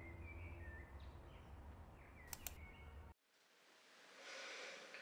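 Near silence: faint room tone with a low hum and a few faint high chirps, and two quick clicks a little after two seconds in. About three seconds in, the sound cuts out completely, then a soft hiss fades back in.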